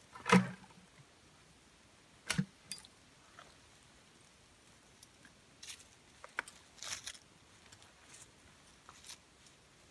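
A plastic pail set down on the ground with a thump just after the start, then a sharp knock a couple of seconds later. After that come scattered light crackles of dry twigs and moss being handled and knelt on.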